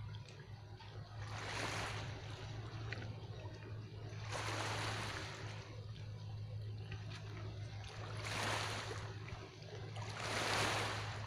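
Small waves washing in at the water's edge, swelling and fading four times, over a steady low hum.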